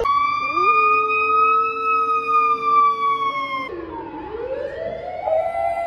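Emergency-vehicle siren wailing in a long, slow rise and fall, swooping low and climbing again about four seconds in. A dog howls along on a lower steady note for about three seconds.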